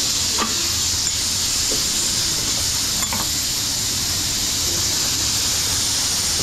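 Steady high hiss, with a few faint clicks.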